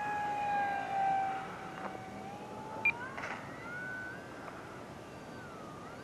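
Electric motor and propeller of an FMS Cessna 182 RC model plane whining. The pitch sags slightly at first, then rises steeply about three seconds in as the throttle is opened and the plane climbs out. A short beep sounds near three seconds in.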